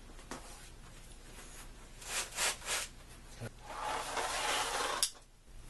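Marker board panel and frame being shifted and handled: a few short rubbing scrapes, then a steadier scrape of about a second that ends in a sharp click.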